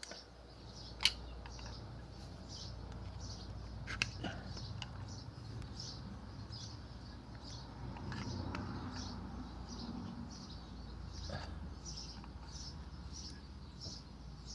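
A few sharp metallic clicks, the loudest about a second in and another about four seconds in, as a flathead screwdriver levers the rear brake caliper piston back. Behind them, a steady high chirping about twice a second.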